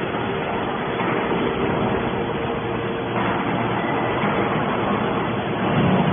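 Hydraulic metal baler running: steady machine noise with a faint humming tone. It grows louder about a second in and again about three seconds in.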